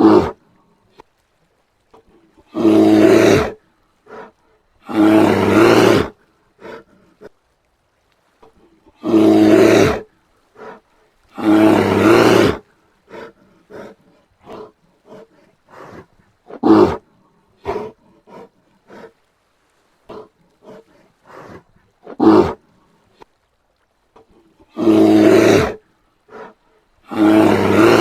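Brown bear vocalizing: loud, deep calls of about a second each, mostly in pairs two or three seconds apart, with two shorter calls in the middle and faint short grunting sounds between.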